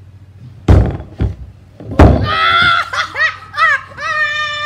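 A plastic wheeled garbage cart with someone inside is tackled and knocked over: a loud hollow plastic thunk under a second in, a smaller knock, then a second loud crash about two seconds in as the cart hits the ground. High-pitched shrieks follow.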